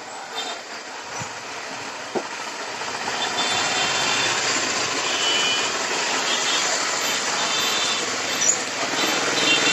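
Street traffic noise, a steady rush that swells about three seconds in and stays loud, with faint high tones over it.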